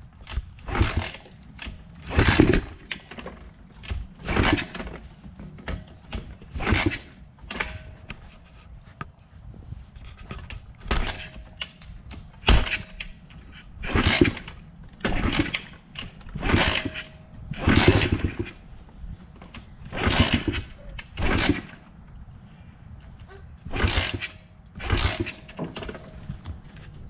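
A 125cc pit bike engine being kicked over by its kick starter again and again, about sixteen kicks roughly a second and a half apart, each a short burst of the engine turning over. It never fires and does not keep running: the first start attempt on the freshly repaired engine is failing.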